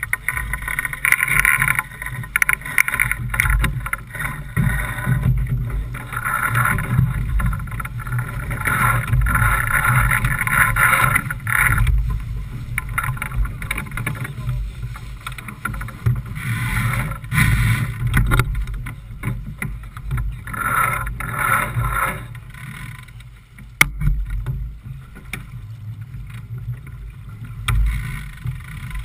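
Wind buffeting the microphone and water rushing along the hull of a J/24 keelboat sailing in choppy water, a low rumble with hissing surges that rise and fall every few seconds. A single sharp knock comes a little past two-thirds through.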